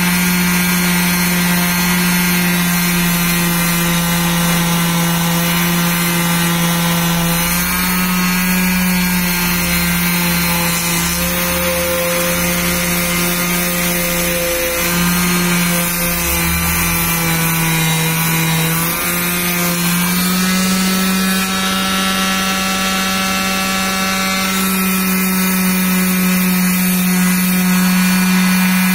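Electric palm sander running continuously, its pad rubbing along a hardwood decking board to smooth down a glue-filled crack. The motor hum stays steady but shifts slightly in pitch a few times.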